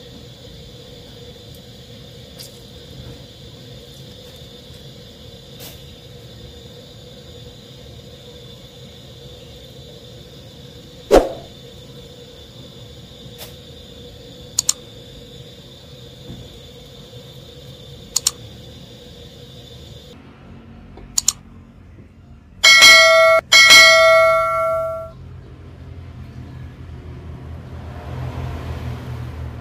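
A metal spoon clicks now and then against a ceramic bowl as fish paste is mixed, over a steady faint hum that stops about two-thirds through. Then come two loud metal clangs that ring on, the loudest sounds here. Near the end, liquid is poured from a metal bowl into the paste.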